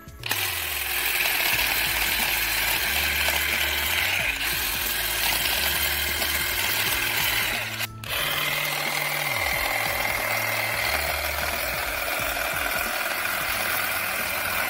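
Stihl HSA 26 10.8 V cordless shrub shears running, a steady buzz from the reciprocating blades, with a brief break about eight seconds in. Background music with a low bass line plays underneath.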